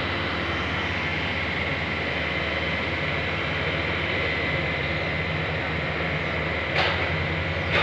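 Heavy diesel construction machinery running steadily: a low engine drone with a steady high whine over it, and a single sharp knock about seven seconds in.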